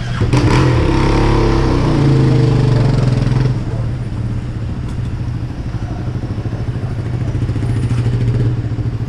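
Dirt bike engine running close by: it revs up just after the start and holds high for about three seconds, then drops back to a lower, pulsing idle.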